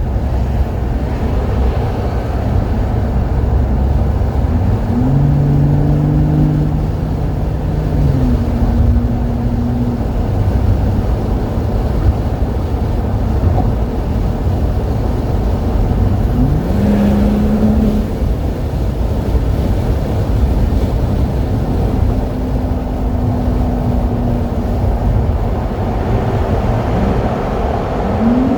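BMW 540i's B58 turbocharged straight-six heard through its exhaust while driving, over a steady low road rumble. The engine note rises under acceleration about five seconds in, again around seventeen seconds and near the end, holding steady between.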